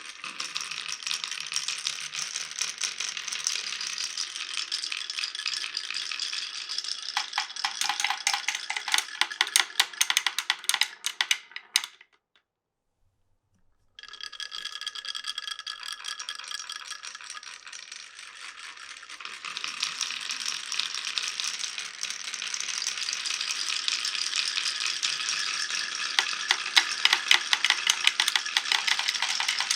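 Many glass marbles rolling and clattering along a wooden marble run in a dense stream of clicks. About halfway through the sound cuts out completely for about two seconds, then the clattering resumes and grows louder near the end.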